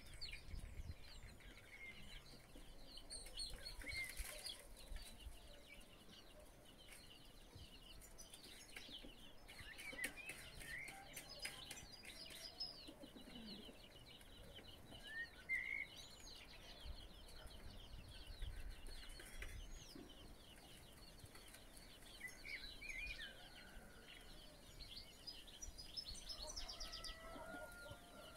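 Faint chorus of small birds chirping, many short, high calls overlapping.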